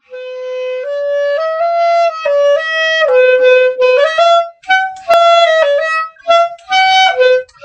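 Intro music: a solo melody played one note at a time. It holds longer notes at first, then moves to shorter, detached notes with brief gaps in the second half.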